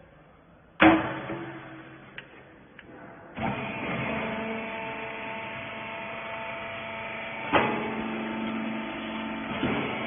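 Hopper lid of a small hydraulic rag baler slamming shut with a loud bang, followed by a few light clicks. About two and a half seconds later the baler's electric motor and hydraulic pump start and run with a steady hum through the compression, with a sharp knock partway through.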